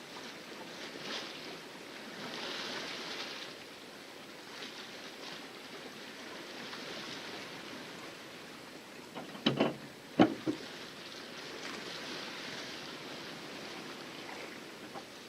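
Water splashing and rushing against the hull of a sailboat under sail, as a steady hiss. Two sudden louder slaps come a little past the middle.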